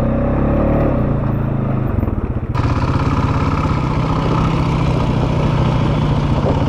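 ATV engine running at a steady pace while riding the trail. A hiss of noise comes in suddenly about two and a half seconds in, over the engine.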